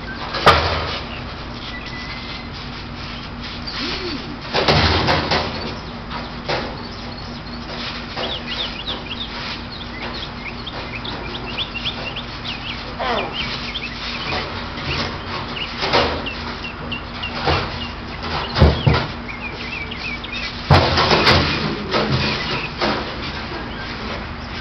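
Irregular thumps and clattering bangs as two people wrestle on a trampoline with a trash can, with the loudest knocks about half a second in, around five seconds and several near the end. Birds chirp in the background through the middle.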